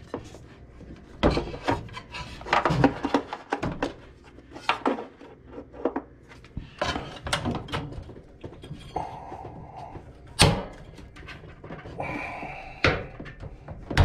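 Hoses being pulled off a washing machine's water inlet valve by hand: irregular clicks, knocks and rubbing of plastic and rubber parts, with one sharp knock about ten seconds in.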